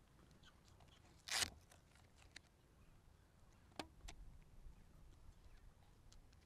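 Near silence with a faint low rumble, broken by one short scraping rustle about a second in and a single sharp click a little before four seconds.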